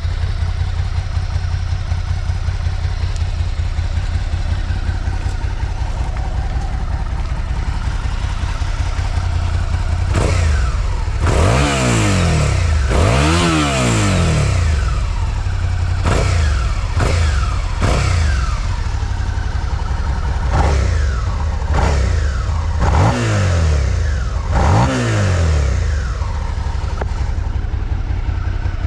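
2024 Suzuki SV650's 645 cc V-twin on its stock exhaust, idling steadily, then revved in a series of short throttle blips that rise and fall quickly, about eight or nine of them through the second half, before settling back to idle.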